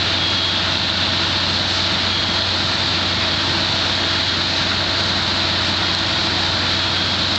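Fire engine's engine running steadily at a fire scene, driving its pump to supply the hose lines: a loud, unbroken mechanical drone with a steady low hum and an even hiss over it.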